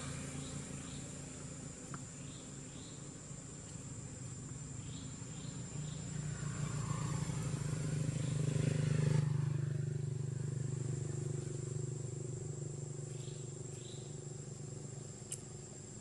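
A motor vehicle's engine hum swells to its loudest about nine seconds in, then eases off. Underneath run a steady high whine and a few faint short chirps.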